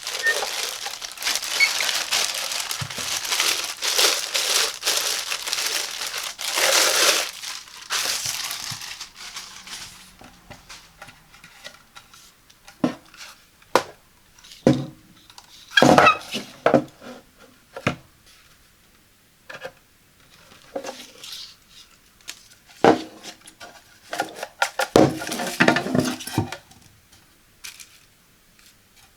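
Packaging of a toilet brush set being unwrapped: dense crinkling and rustling for about the first ten seconds, then scattered knocks, taps and clicks as the parts are handled, with a cluster of them about a second apart around the middle and again near the end.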